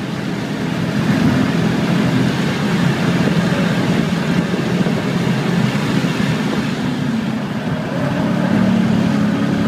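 Audi RS4 engine pulling at around 5,000 rpm in fifth gear, heard from inside the cabin over tyre and wind noise. The engine note eases a little before coming back stronger near the end.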